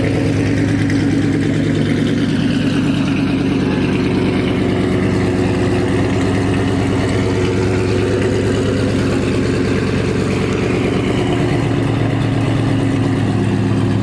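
2012 Shelby GT500's supercharged 5.4-litre V8 idling steadily through freshly installed long tube headers and an off-road X-pipe.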